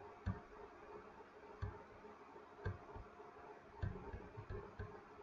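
Faint computer mouse clicks, about one a second, with a small cluster near the end.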